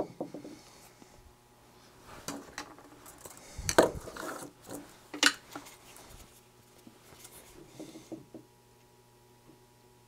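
Handling noise on a wooden workbench: metal parts and tools clicking, clinking and rubbing, with a heavier knock about four seconds in and a sharp click a second or so later.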